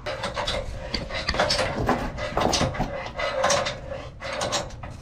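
Ratchet wrench clicking and metal scraping as a leveling foot on the sawmill rail is adjusted to raise that side. The clicks come in quick, uneven runs.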